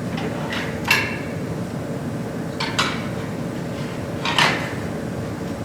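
Three short metallic clinks, spread about two seconds apart, from a dial indicator and its magnetic base being handled and set down, over a steady room hum.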